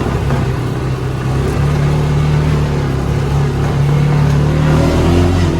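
A vehicle's engine running while driving, steady with its pitch rising a little partway through.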